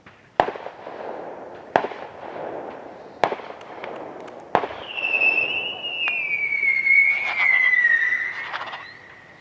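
Fireworks going off: four sharp bangs about a second and a half apart, each trailing into an echoing rumble. Then a long high whistle slowly falls in pitch for about four seconds, with crackling near its end.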